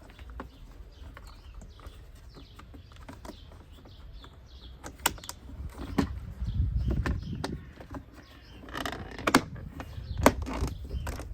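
Sharp clicks and knocks of parts being handled and fitted while installing a car door speaker, with low rumbling handling noise between them. Faint birdsong in the background.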